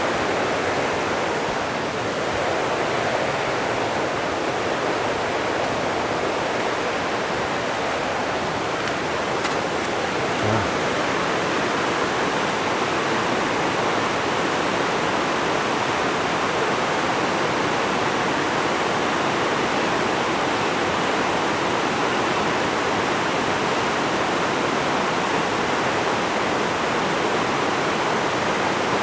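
Housatonic River rushing over rapids: a steady, loud rush of running water.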